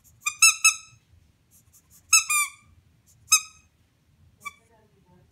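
A squeaky rubber dog-toy ball squeezed by hand, giving short high squeaks that dip slightly in pitch. They come in clusters: three near the start, another few a little after two seconds, then a single squeak, and a faint one near the end.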